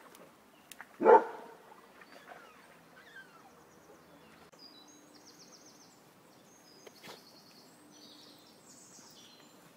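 A dog barks once, loudly, about a second in.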